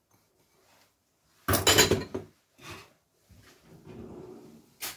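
Sliced fennel and apple salad tipped out of a ceramic bowl into a larger bowl: a loud clatter of bowl against bowl about a second and a half in, a short knock, then softer rustling of the slices and another knock at the end.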